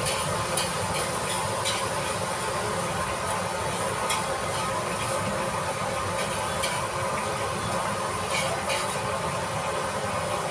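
Steady sizzling hiss of food frying in oil on the stove, with a few sharp clicks now and then.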